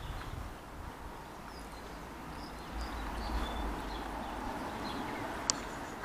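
Outdoor ambience: a steady low rumble with faint high chirps scattered through it, and two sharp clicks about a second apart near the end.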